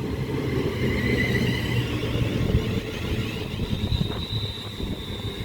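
A pair of Class 350 electric multiple units running past a station platform: a steady low rumble of wheels on rail with a high electric motor whine, which settles into a steady higher tone about halfway through.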